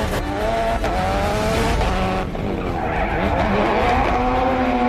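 Ford Fiesta rally car being drifted in donuts, its engine revving hard with the pitch rising, dipping about two seconds in, then climbing and holding, while the tyres squeal and skid on tarmac.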